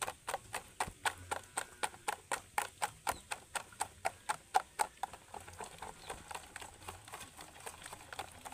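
A hand beating thick besan (gram-flour) batter in a stainless steel bowl: rhythmic wet slaps and clicks, about four or five a second, growing fainter and less regular about five seconds in. The batter is being beaten to aerate it, so that the boondi come out light and puffed.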